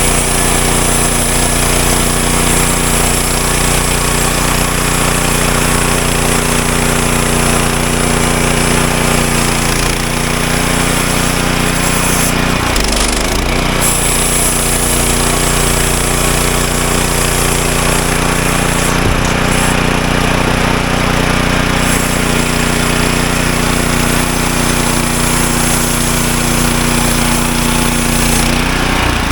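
Woodland Mills HM126 portable band sawmill running under load, its gas engine at high speed and the band blade cutting through a log. It makes a loud, steady mechanical drone throughout.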